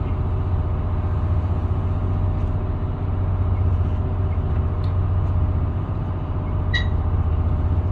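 Steady low drone of a boat engine running at constant speed on the water, with a brief faint high squeak about seven seconds in.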